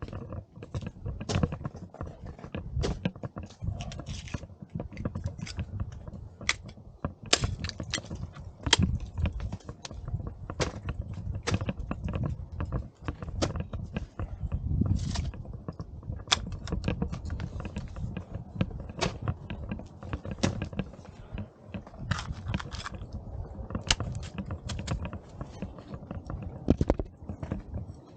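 Footsteps crunching in snow, an irregular run of sharp crunches a few per second, over a low rumble of wind and handling noise on the microphone.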